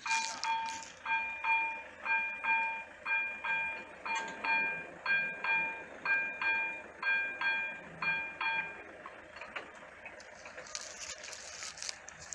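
Railway level-crossing warning bell ringing about twice a second as the barriers lower, warning of an approaching train; the ringing stops about nine seconds in. A few sharp clicks follow near the end.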